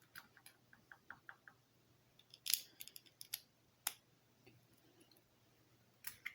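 Small plastic LEGO pieces clicking and tapping as they are handled and pressed together: a scattering of light clicks, a louder cluster about two and a half seconds in and a sharp click near four seconds.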